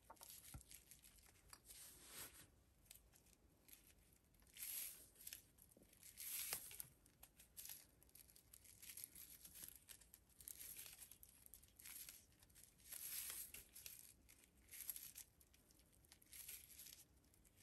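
Faint, irregular rustling and crinkling of paper yarn as it is pulled taut and wound tightly around a bag-handle core, a soft crinkle every second or two.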